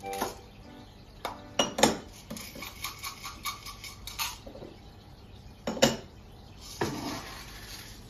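Ceramic cat food bowls clinking and knocking as cats eat from them. A few sharp knocks come about a second and a half in and another near six seconds, with lighter clicks between.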